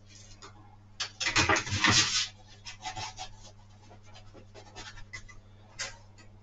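A rustling scrape lasting about a second, then scattered light clicks and knocks: someone moving about and handling things at a workbench. A faint steady low hum continues underneath.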